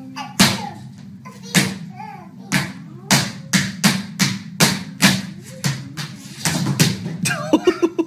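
A toddler's hard-soled shoes tapping and stomping on a hardwood floor: a string of sharp clicks, about two a second, coming quicker near the end, with a small child's voice faintly between them.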